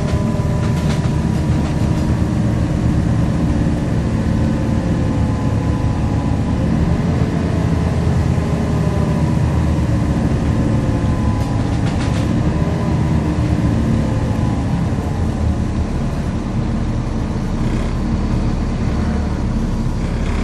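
Volvo B7LA diesel engine of a Wrightbus StreetCar articulated bus running steadily with a deep drone and a whiny turbo whistle above it. The whistle's pitch drifts slowly downward, and the engine pitch shifts about seven seconds in.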